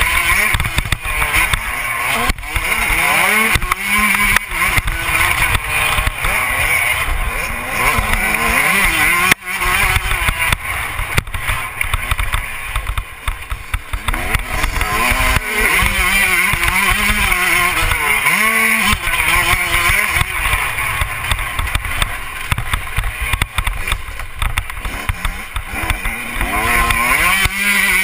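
Motocross bike engine revving up and down as it accelerates and backs off around a dirt track, with rumbling wind noise on the microphone. A sharp knock sounds about nine seconds in.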